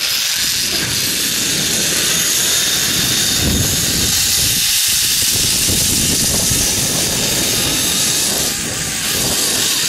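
Steady rushing of wind across the microphone, mixed with the whir of a zip-line trolley running fast along its steel cable during a ride.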